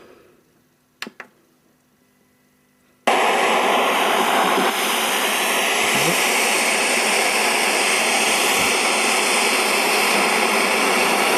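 An FM radio clicks about a second in, then loud, even hiss of radio static starts suddenly at about three seconds, as the set is tuned toward the home-built bug transmitter's frequency.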